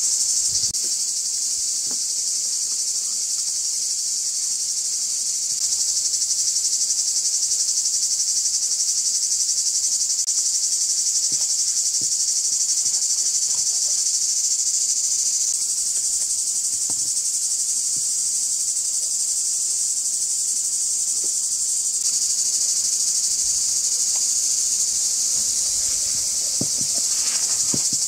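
Steady high-pitched chorus of insects buzzing without a break, with a few faint knocks and taps from handling in the foreground.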